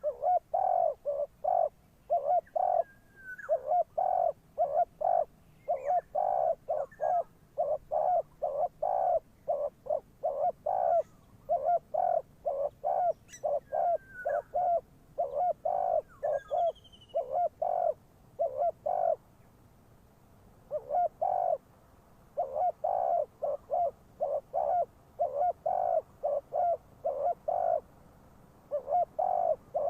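Spotted dove cooing: loud, repeated short coo phrases in runs with brief pauses between them, the call a decoy dove gives to lure wild doves. Faint chirps from another bird come now and then.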